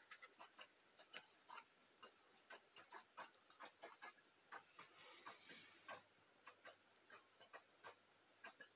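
Faint, irregular clicking and ticking, several small clicks a second.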